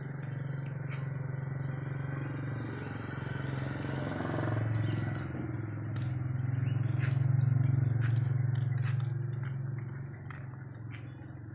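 A steady low hum that grows louder past the middle and fades near the end, with a few faint clicks over it.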